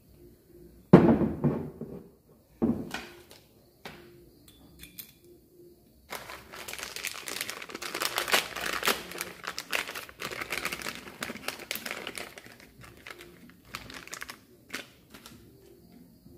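Handling noise from motorcycle engine parts on a workbench during cylinder head installation: a loud knock about a second in and another a couple of seconds later, a few clicks, then several seconds of dense crackling and rubbing.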